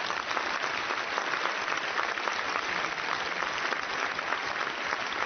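Large audience applauding steadily, many hands clapping in an even wash that neither builds nor fades.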